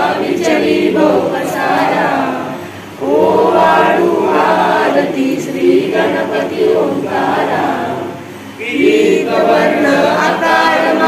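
Group of voices singing a Marathi devotional aarti (a bhupali) together, in long phrases with two brief pauses, about three seconds and eight and a half seconds in.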